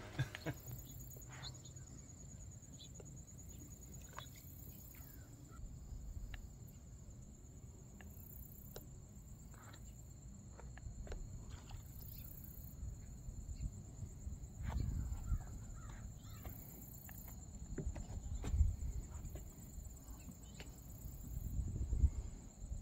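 Outdoor marsh ambience: a steady high insect trill with fainter pulsing insect calls above it, scattered short bird chirps, and low wind rumble on the microphone that swells a few times, most strongly near the end.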